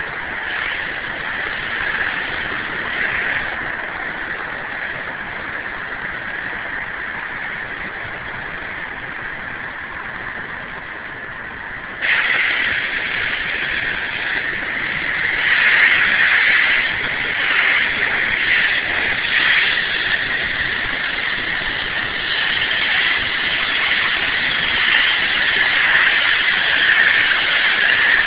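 Pressure washer wand blasting a concrete sidewalk to lift chewing gum: a steady, loud hiss and rush of the high-pressure water jet. It jumps suddenly louder about twelve seconds in and stays there.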